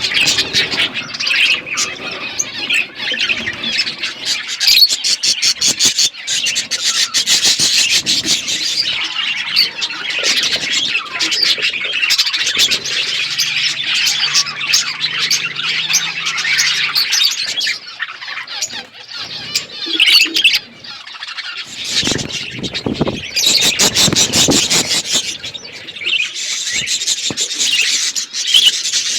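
Budgerigars chattering and chirping continuously in a busy, fast-changing warble, with a louder, harsher burst about three-quarters of the way through.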